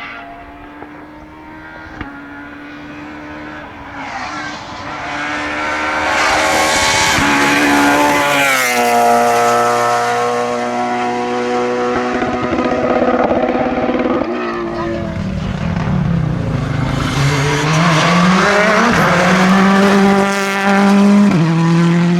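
Rally car engine coming closer under hard throttle, its revs dropping sharply about a third of the way in, then falling again and climbing steadily as it powers out of a corner, with an upshift near the end. Light tyre squeal along with it.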